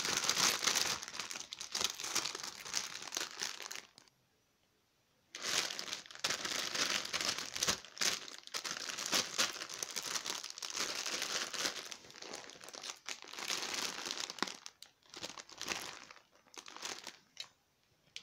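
Thin plastic packaging pouches crinkling as hands handle and fold them. About four seconds in it stops for a second or so, then resumes and thins to scattered crinkles near the end.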